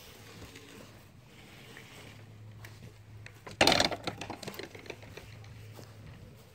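Wooden privacy-fence gate swung shut, meeting its post and metal latch with one loud clack about three and a half seconds in, followed by a few lighter rattles. A faint steady low hum runs underneath.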